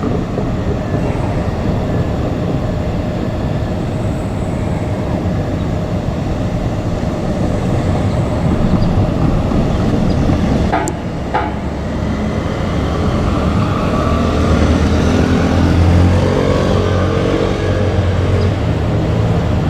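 JR Kyushu 817-series electric train running: a steady rumble that grows a little louder in the second half, with a brief sharp click about eleven seconds in.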